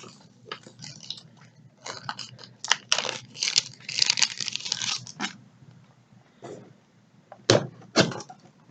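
Cardboard shipping box being cut and torn open: bursts of scraping and tearing of tape and cardboard for a few seconds, then two sharp knocks near the end.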